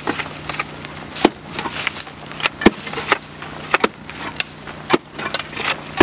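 Long-handled cutting tools chopping and slashing through dry brambles and undergrowth: irregular sharp chops and snaps, about two a second, with brushwood crackling. A steady low hum runs underneath.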